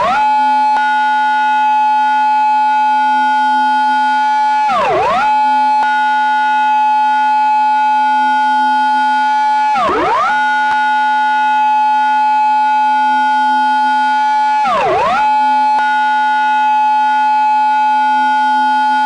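Japanese police car siren in its intersection-entry pattern: a held high wail that every five seconds or so drops sharply and sweeps straight back up, a quick 'gyuiiin' dip heard three times.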